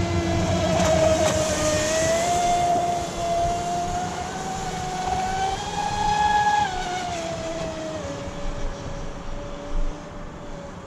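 Electric RC speedboat's brushless motor whining as the boat runs across the water, its pitch rising and falling with the throttle. The whine climbs to its highest pitch about six seconds in, then drops lower and fades as the boat moves away.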